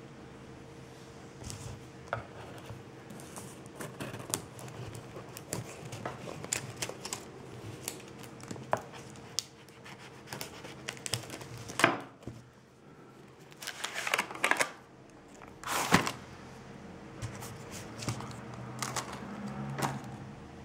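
Hands unboxing a cardboard retail box: fingers picking and tearing at the plastic wrap, crinkling, and cardboard sliding and tapping on a table, as many small clicks and rustles with two louder knocks in the second half.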